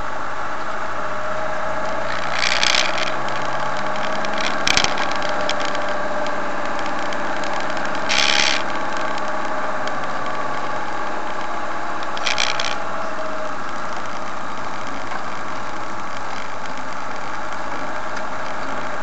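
Motorhome engine running steadily on the road, heard from inside the cab, with four brief noises about two, five, eight and twelve seconds in.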